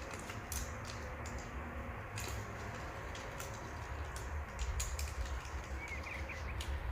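Irregular light clicks and taps from hands working with parts and tools, over a low steady rumble.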